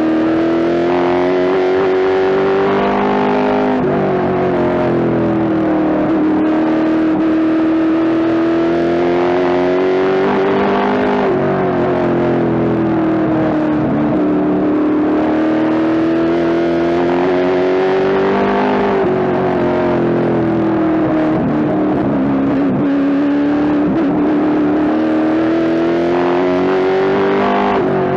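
Pro Stock late-model race car's V8 engine heard from inside the cockpit at racing speed. Its pitch climbs steadily down each straight and drops sharply as the driver lifts for the turns, about every seven to eight seconds.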